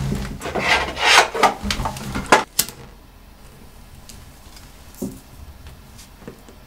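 Rustling and scraping of hands rummaging among objects on a tiled shelf, ending with a couple of sharp scrapes and clicks about two and a half seconds in as a cigarette is lit. After that it is mostly quiet, with a faint click about five seconds in.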